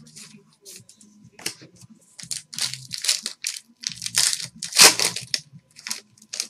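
A foil trading-card pack being torn open and crumpled by hand: sparse light crinkles at first, then a dense run of loud crackling tears from about two seconds in, loudest shortly before the end.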